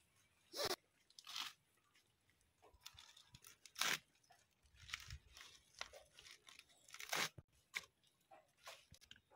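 Crisp lettuce leaves being sliced on an upright boti blade, several separate crunching cuts at uneven intervals.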